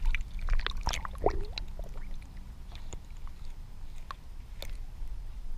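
Lake water splashing and sloshing around a largemouth bass held by the lip as it is lowered in for release. Then the muffled, low sound of the camera underwater, with a few faint clicks.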